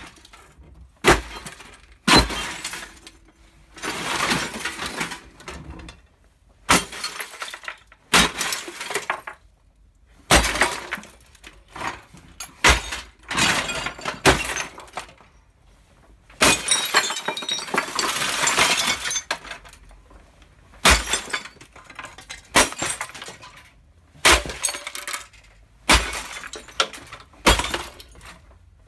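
Heavy wooden post smashing down again and again onto a small Samsung CRT television: sharp crashes of cracking plastic casing and breaking glass, with debris clattering after each blow, about every second and a half to two seconds. About halfway through comes a longer run of crashing and shattering glass lasting a few seconds.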